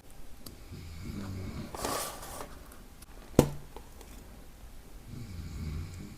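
A man snoring in a slow, regular rhythm, the low buzzing snores coming about four seconds apart. A single sharp click, the loudest sound, comes about three and a half seconds in.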